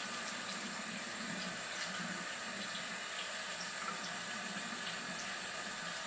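Bathroom sink faucet running steadily into the basin while a face is washed and rinsed by hand.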